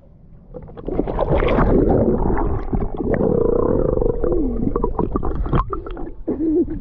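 Muffled water gurgling and sloshing close to the microphone, coming in loud about a second in, with a few muffled, wavering voice-like sounds.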